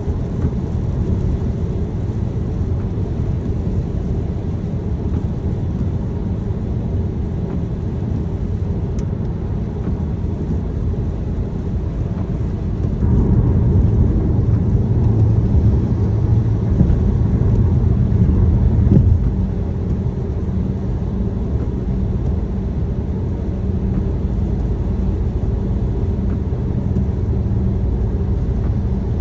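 Steady low rumble of a car being driven, heard from inside the cabin: road and tyre noise with engine hum, swelling louder for several seconds midway before settling back.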